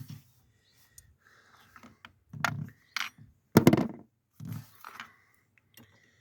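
A few short knocks and clinks of hands and tools working at a car battery's broken positive terminal, in separate bursts; the loudest is a sharp clatter a little past halfway.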